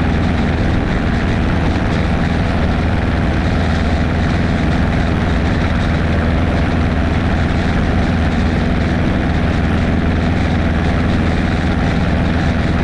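Propeller aircraft engine droning steadily at constant power, loud and unchanging throughout.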